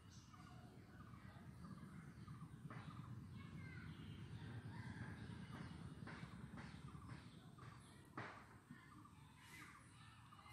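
Faint outdoor ambience: birds calling now and then over a low rumble, with a few soft knocks, the clearest one about eight seconds in.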